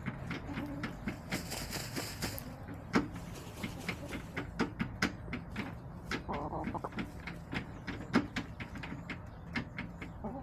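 Hens pecking at food on a dirt floor close by: a quick, irregular patter of beak taps. A short hiss of noise comes about a second and a half in.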